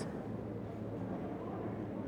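Steady low background noise with a faint low hum.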